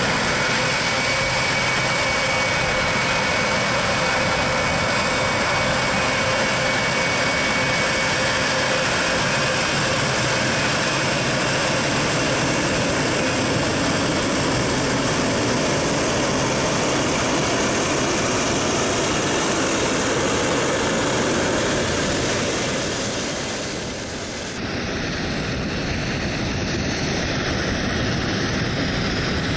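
Boeing 777 airliner's twin jet engines running as it taxis past, a steady loud whine with faint high tones. The sound changes abruptly about 24 seconds in, as the jet begins its takeoff roll.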